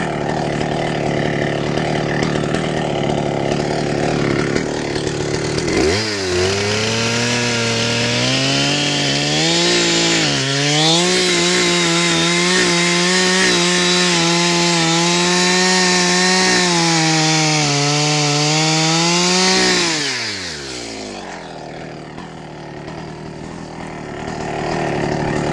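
Two-stroke chainsaw idling, then throttled up about six seconds in and held at high revs for about fourteen seconds, its pitch wavering as it cuts into the wood, before dropping back toward idle.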